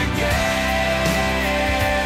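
Background rock music: an instrumental passage with long held notes that bend in pitch.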